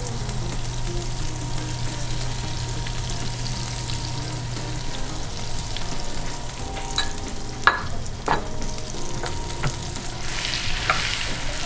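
Melted plant-based butter sizzling in a stainless steel skillet over a gas flame as brown sugar is spooned in, with a few sharp clinks of the spoon between about seven and eight and a half seconds in. The sizzle grows louder near the end as the sugar is stirred into the butter with a wooden spoon.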